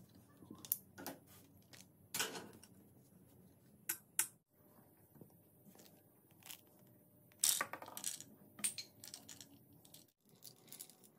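Steel balls clinking and rolling as they are loaded into the wooden channel of a homemade slingshot rifle, amid scattered clicks and knocks of bar clamps and wood being handled. The sound is a string of separate sharp clicks, with the loudest cluster of clinks a little past the middle.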